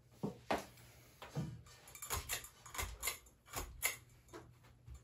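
Light, irregular clicks and taps, about a dozen in five seconds, over a faint steady low hum from a Fanimation ceiling fan's motor running on low speed.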